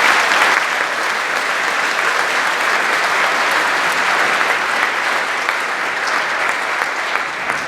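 Large audience applauding loudly, a dense steady clapping that eases slightly near the end.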